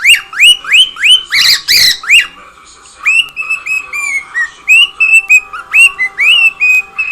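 Pet cockatiel whistling its song: a quick run of short rising whistled notes, several a second, with two louder, harsher calls around one and a half seconds in and a short pause before the whistling picks up again.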